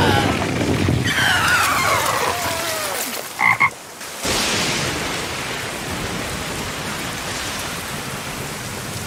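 Animated sound effects: a falling sliding tone, then a toad croaking twice in quick succession about three and a half seconds in, followed by steady heavy rain.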